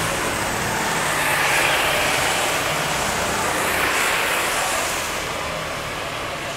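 Sodi RT8 rental karts' four-stroke engines running past on a wet track, with a steady hiss of tyres on the wet asphalt. The sound swells twice as karts pass, once about four seconds in, then eases off near the end.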